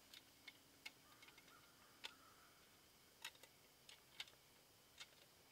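Faint, irregular wooden clicks and light taps, about nine in all, as pieces of a small wooden camp tool are handled and taken apart by hand.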